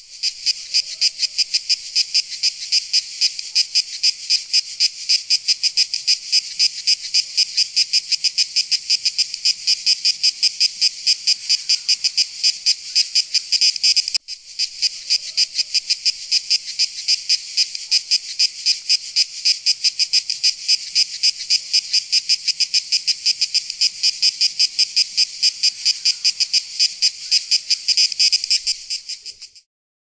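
Cicada song: a loud, high, rapidly pulsing buzz, with a brief break about halfway through, stopping shortly before the end.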